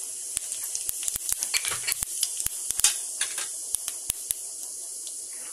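Cumin seeds sizzling in hot oil in a steel pan: a steady hiss with many sharp pops and crackles as the seeds splutter, thinning out after about four seconds.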